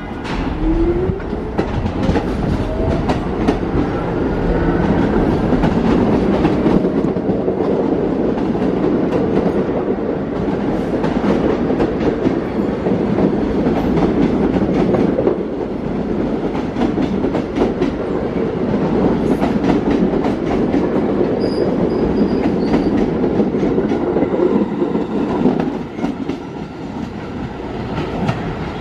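A New York City subway train pulls out and accelerates away. Its traction motors give a rising whine in the first few seconds, then the wheels clatter over rail joints above a steady rumble, which eases off near the end.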